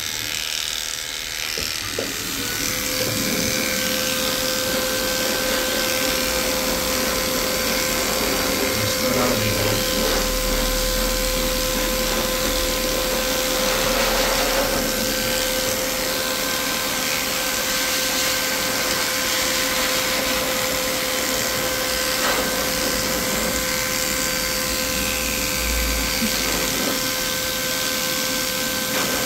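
Electric dog grooming clippers running with a steady hum as they shave through a matted coat; the hum settles onto one steady pitch about two seconds in.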